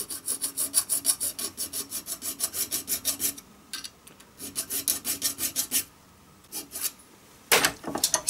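Small triangular file rasping back and forth across a thin brass angle strip held in a vise, fast even strokes of about five a second, cutting a V notch so the strip can be bent. The filing pauses briefly twice, and a couple of louder knocks come near the end.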